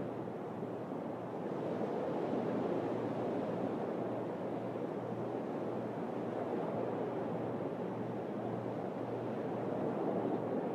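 Sea waves washing on a shore, a steady rush that swells a couple of seconds in and again near the end, over a faint steady low hum.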